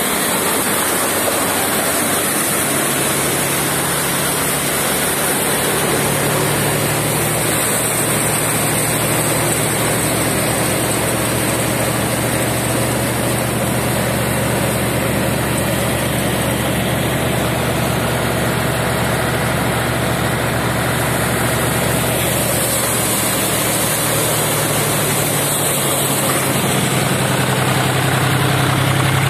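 Tractor-driven Harnaam multi-crop thresher (four-fan model) threshing paddy: a loud, steady mechanical din from the John Deere tractor's engine and the thresher's spinning drum and fans. The engine's low note shifts a little a few times.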